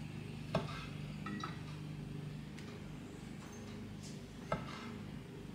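Kitchen knife knocking on a wooden cutting board while slicing cherry tomatoes: two sharp knocks, about half a second in and near the end, with lighter taps in between.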